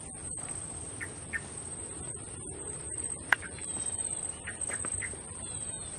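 Birds chirping and calling in short scattered notes over a low rumble, with a steady high-pitched tone throughout and one sharp click a little past the middle.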